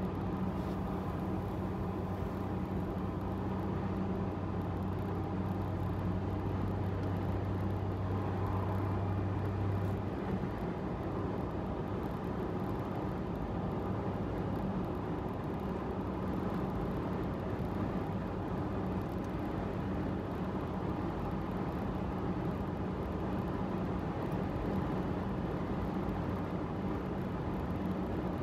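Steady driving noise of a Subaru Sambar kei truck cruising on an expressway: engine and tyre-on-road noise with a low drone that fades about ten seconds in.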